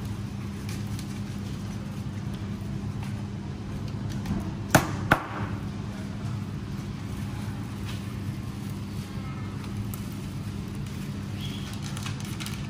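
Steady low mechanical hum of a supermarket fish counter, with two sharp knocks about a third of a second apart near the middle from work at a plastic cutting board.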